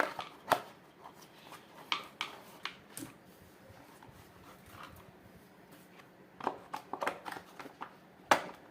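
Scattered sharp clicks and knocks of a pressure washer's replacement motor assembly being handled and pushed into its casing, with a quick cluster of knocks near the end.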